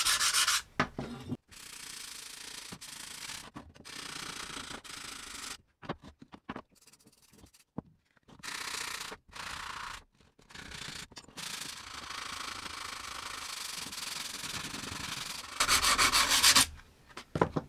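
Coarse sandpaper, about 120 grit, rubbed by hand along a rusty curved Silky saw blade to take the rust and sap off. It goes in stretches of back-and-forth strokes with short pauses, with louder, quicker strokes at the start and near the end.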